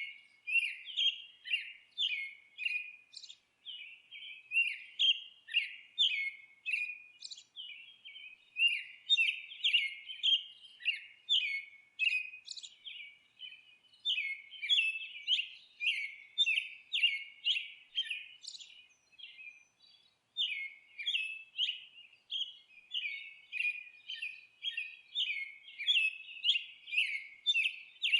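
A bird chirping repeatedly: short, high chirps at about two a second, in runs broken by brief pauses every few seconds.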